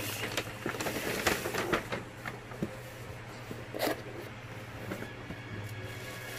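Paper and cardboard being handled: a cardboard box slides out of a paper carrier bag with a flurry of short scrapes and crinkles in the first two seconds, then a single sharp scrape about four seconds in as the box's lid tab is pulled free. Crumpled kraft packing paper rustles as hands reach into the box near the end.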